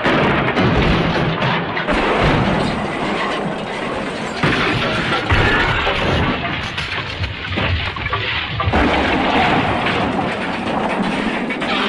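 Loud, dense crashing and rumbling noise from an edited cartoon smash sound effect, changing abruptly to a new stretch about every two to four seconds.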